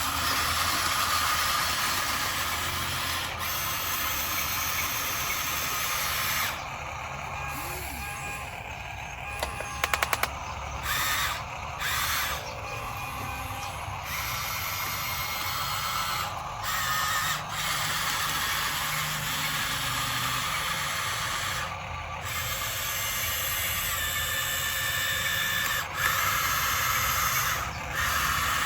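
Small electric motors and gearboxes of 1:16 scale RC construction machines whirring, cutting in and out every few seconds as the machines move. A short rattle of sharp clicks about ten seconds in.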